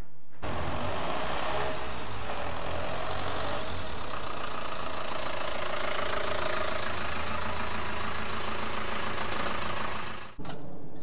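Ford Transit van's engine running steadily, breaking off abruptly for a moment near the end before a similar steady sound resumes.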